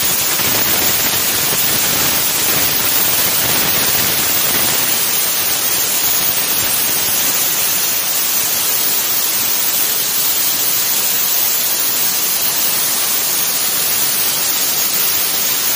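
CNC plasma torch cutting steel plate: a loud, steady hiss, heaviest in the high range.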